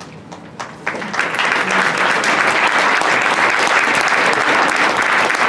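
An audience claps. It starts with a few scattered claps, swells into full applause about a second in, and holds steady after that.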